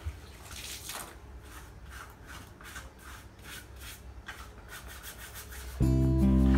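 Scraping strokes repeated about three times a second. Guitar music starts near the end and is louder than the scraping.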